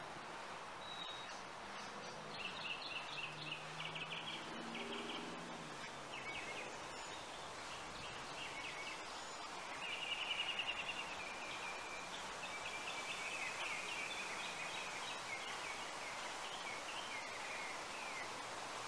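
Birds calling outdoors in quick chattering trills, one after another, over a steady outdoor hiss; the calls are loudest about halfway through.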